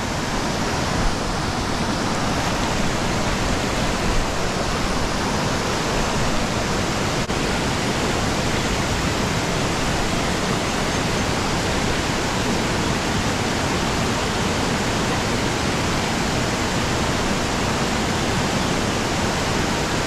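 Creek water rushing: a steady, even hiss.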